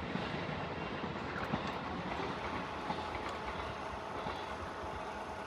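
Chichibu Railway train running over the rails past a level crossing: a steady rumble of wheels and rail noise.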